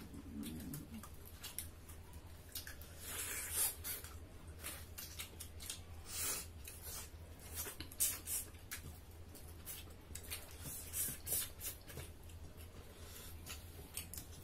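Several people eating with their hands: wet lip smacks, chewing and finger-sucking come as a string of short irregular clicks and squelches. A low steady hum sits underneath.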